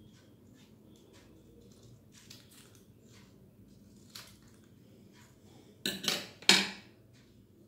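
Small scissors snipping paper with faint clicks, then a few loud clatters about six seconds in as the metal scissors are set down on a hard tabletop.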